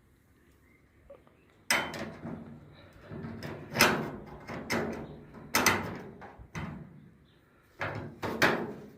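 A handful of sharp metal knocks and clunks, each ringing briefly, as a welded-up steel repair piece is fitted into the A-pillar of a 1962 Ford Consul Capri body.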